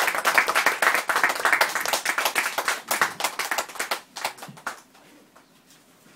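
Small audience applauding by hand, the clapping thinning out and dying away about four to five seconds in, leaving a few last scattered claps.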